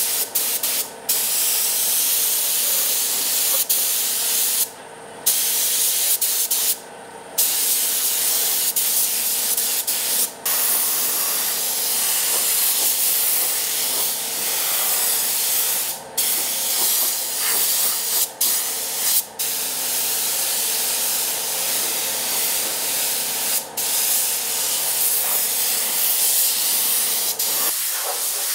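Compressed-air paint spray gun spraying a steady hiss, cut by short breaks each time the trigger is released, eight or so times. A faint steady hum runs underneath and stops near the end.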